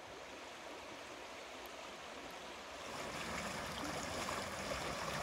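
Shallow river water flowing and rushing over its bed, a steady watery hiss that grows louder about three seconds in.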